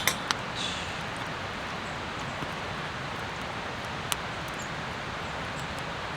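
Steady outdoor hiss with a few faint, isolated clicks.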